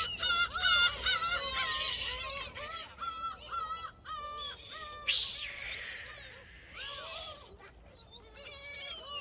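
A flock of gulls calling over one another, many short repeated calls in quick succession. About five seconds in, a brief rushing noise cuts across the calls.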